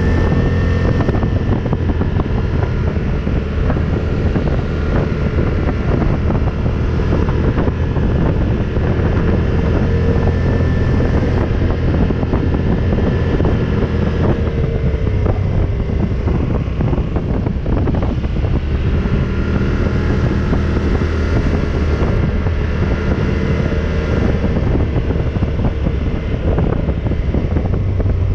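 ATV engine running under way, with wind noise on the microphone. The engine note dips about halfway through and then picks up again.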